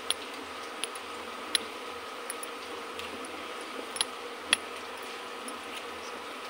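A metal spoon stirring gram flour and water into a thick batter in a stainless steel bowl, the spoon clicking against the bowl a few times at irregular moments, over a steady faint hum.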